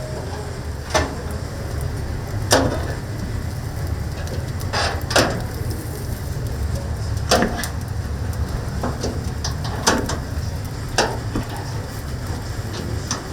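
Kitchen clatter: irregular sharp knocks and clacks, about one every second or two, over a steady low rumble.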